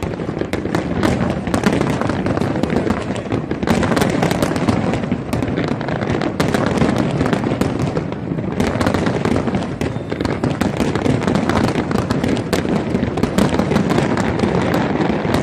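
Fireworks going off in a dense, continuous barrage: many sharp bangs and crackles in quick succession, without a break.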